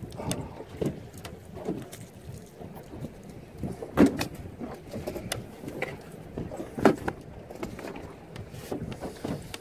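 Choppy water slapping against the hull of a small boat in an irregular series of low thumps, with two sharper knocks about four and seven seconds in.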